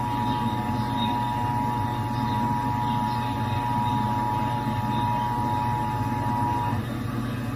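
Emergency Alert System attention signal: the steady two-tone alarm of two pitches sounded together, cutting off near the end, over a low steady hum.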